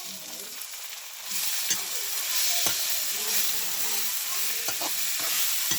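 Food sizzling in a hot pan while being stirred, the hiss growing louder about a second in, with a spoon or spatula clicking against the pan a few times.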